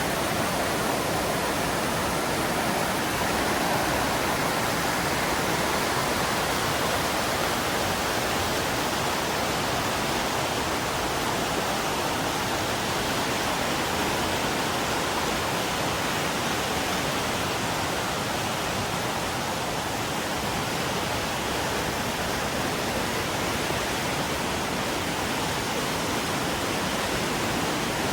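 Mountain river rushing over rocks: a steady, unbroken roar of flowing water.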